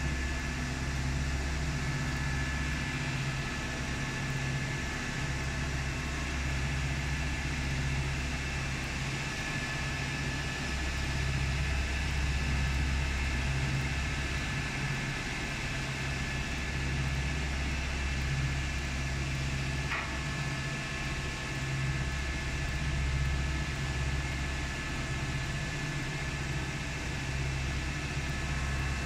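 Paper tube polishing machine running steadily: a deep motor hum that rises and falls unevenly, with a thin steady whine above it.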